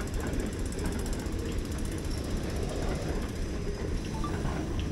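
Wind rumbling on the microphone, with a fast, even mechanical ticking through the first three seconds or so.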